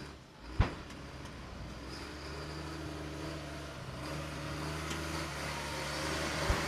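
Diesel engine of an M142 HIMARS rocket launcher truck running as the truck drives by on a dirt track, growing louder as it comes closer. A sharp thump about half a second in, and a smaller one near the end.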